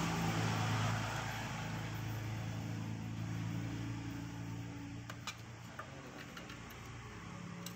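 A motor vehicle engine running steadily, its hum fading away over the second half, with a few light clicks near the end.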